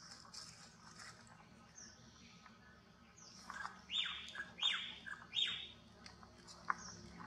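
Bird chirping: faint high chirps throughout, then a quick run of calls about three and a half seconds in, three of them loud and sliding steeply down in pitch, a little over half a second apart.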